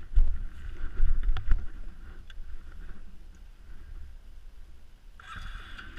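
ATV engine running as the quad moves slowly over snow, with heavy low rumble and a few sharp knocks in the first second and a half. The engine note gets louder and brighter a little past five seconds in.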